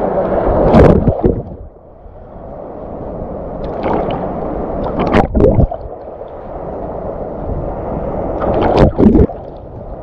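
Sea water sloshing and splashing close to the microphone in choppy waves, with louder surges about a second in, around the middle, and near the end.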